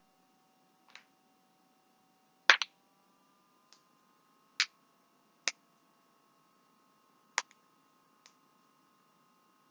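Spinal joints cracking: about seven sharp, separate pops spaced irregularly. The loudest is a quick double crack about two and a half seconds in, and a second double comes near the end.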